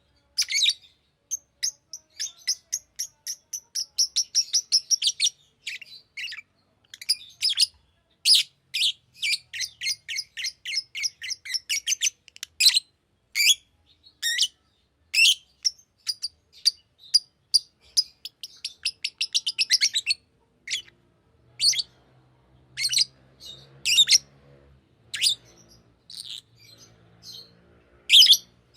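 Green lovebird chirping: rapid strings of sharp, high chirps, several a second, thinning after about twenty seconds to single, spaced-out calls.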